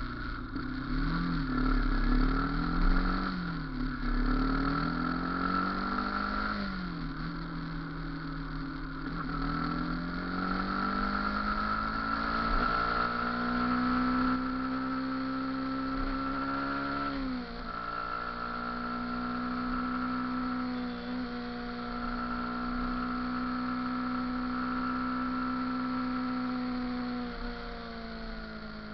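Motorcycle engine running under way, its pitch rising and falling several times with throttle and gear changes, dropping sharply about halfway through, then holding steady at a cruise.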